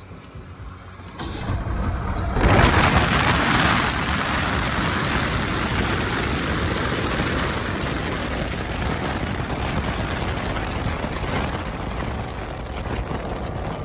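Powerboats running fast on the river: a loud, steady rush of wind, spray and engine noise that comes in suddenly about two seconds in.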